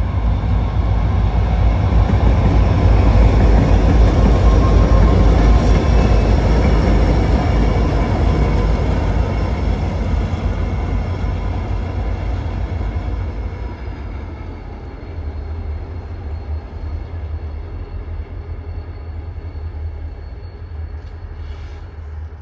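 Three Norfolk Southern diesel locomotives running light, with no cars, passing by: a heavy engine and wheel rumble, loudest a few seconds in, then fading steadily as they move away. A faint steady high whine sits over the rumble in the second half.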